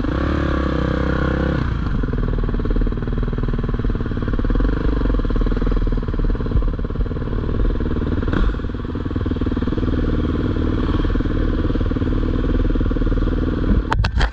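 Dirt bike engine running at idle, a little faster at first and dropping back about two seconds in. A few sharp knocks near the end.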